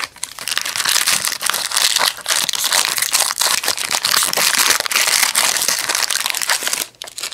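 Foil trading-card pack wrapper being torn open and crinkled by hand: a loud, dense run of irregular crackling that stops sharply near the end.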